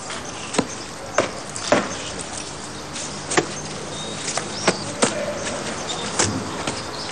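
Irregular sharp knocks of work on a building site, roughly one every half second to a second, over a steady low hum.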